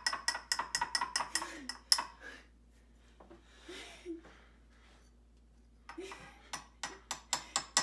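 A metal spoon and table knife clink and scrape against the rim of a glass jar in quick runs of sharp taps, about five a second, with a few seconds' pause in the middle. The utensils are knocking stiff, sticky honey off the spoon into the jar.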